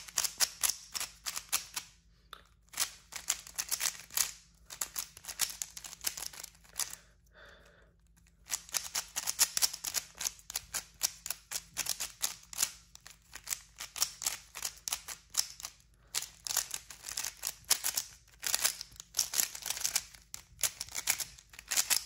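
QiYi Warrior W 3x3 plastic speed cube turned fast through a chain of PLL algorithms: rapid runs of clicking and clacking turns, with short pauses between algorithms about 2, 7 and 16 seconds in.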